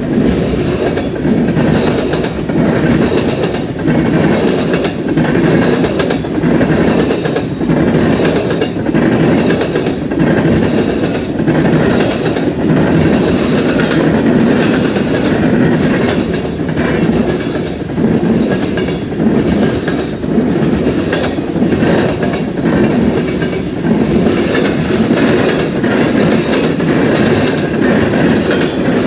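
Freight cars of a passing freight train rolling by at close range: a steady rumble of wheels on rail with a continual run of clickety-clack as the trucks cross the rail joints.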